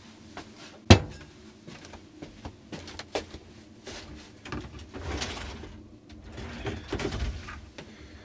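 Household handling sounds in a small camper: a sharp clack about a second in, then scattered light clicks and knocks, with two longer rustles near the middle and toward the end.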